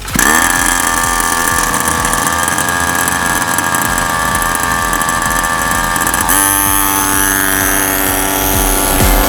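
Small 49cc two-stroke minibike engine revving up suddenly at the start, then running steadily. About six seconds in, its pitch shifts and it settles at a new steady speed.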